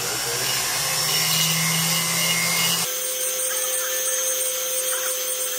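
Flex-shaft rotary tool running with a fine bur, cutting the seats for the stones' girdles into a silver channel setting. Its tone shifts about three seconds in, when the low hum drops out and a steadier, higher hum takes over.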